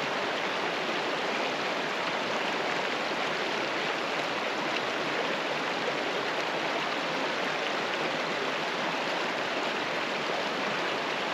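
Shallow river water rippling over rocks in a riffle: a steady, even rushing.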